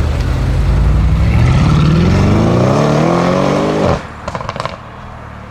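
Porsche 997 Turbo's twin-turbo flat-six, with a SOUL Competition exhaust, accelerating hard, its note rising steadily for about four seconds. The sound cuts off abruptly as the throttle closes, followed by a quick series of short pops.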